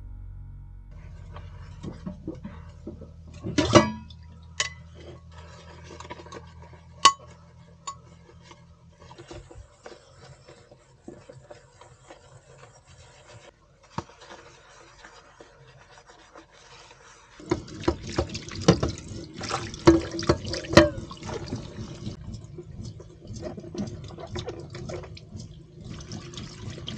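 Washing up at a small stainless-steel sink: a glass bowl is scrubbed with a sponge, with a few sharp glass clinks. About two-thirds of the way through the tap is turned on, and water runs over a pepper and hands being rinsed, with more clinks.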